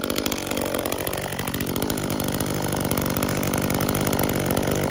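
Small top-handle two-stroke chainsaw running steadily just after a cold start, with a brief shift in engine pitch about a second in.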